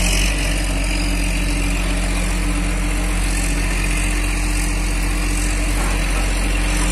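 Engine of construction machinery running steadily at a constant speed, a continuous low hum with no change in pitch or level.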